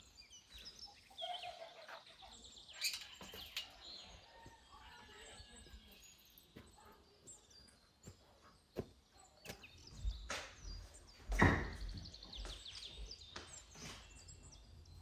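Small birds chirping, with scattered knocks and clicks and one louder thump about eleven seconds in.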